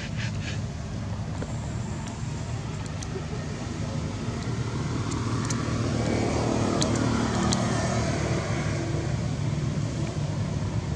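Road traffic: a motor vehicle passing, swelling to its loudest about six to eight seconds in and then easing, over a steady low rumble.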